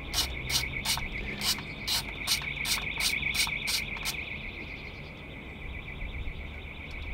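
Ratchet wrench with a 10 mm socket clicking about two to three times a second as the solenoid's retaining bolt is run out, stopping about four seconds in. A steady, high insect chirring carries on underneath.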